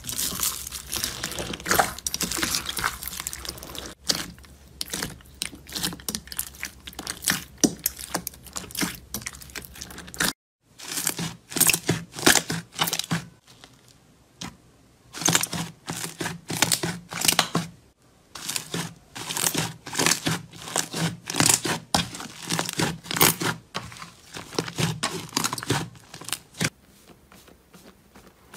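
Hands squeezing and poking slime: rapid crackling and popping as foam beads and trapped air bubbles burst, with squishing underneath. It comes in several takes that change abruptly about 10 seconds and about 18 seconds in.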